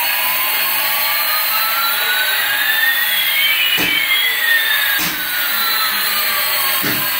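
Jet-engine sound, as from a toy airliner's electronic sound unit: a steady hissing rush with two whines, one rising in pitch and one falling, crossing midway. A few light knocks are heard.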